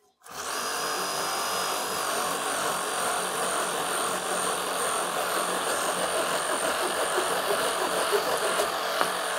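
Cordless Hackzall reciprocating saw with a curved pruning blade running steadily while it cuts through a 4-inch tree limb, with a faint high motor whine over the rasp of the blade.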